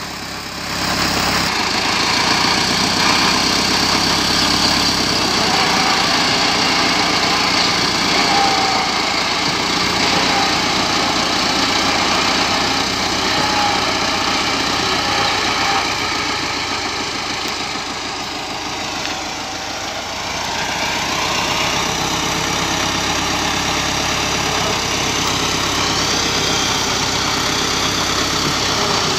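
Farm tractor diesel engine running steadily at low speed. It dips in level for a few seconds about two-thirds of the way through.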